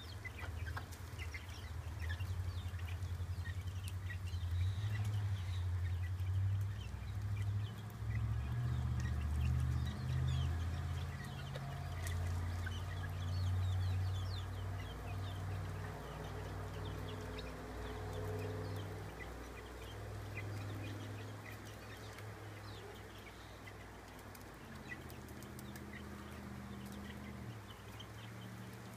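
A mother hen clucking low and steadily to her chicks, loudest over the first half and softer later, with the chicks' many short, high peeps throughout.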